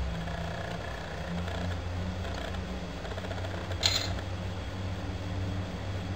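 Steady low hum with one sharp click about four seconds in.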